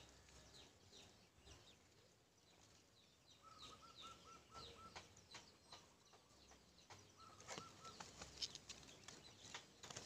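Faint outdoor birdsong: many short, high, falling chirps, and twice a short run of about six evenly spaced notes, first about three and a half seconds in and again about seven seconds in.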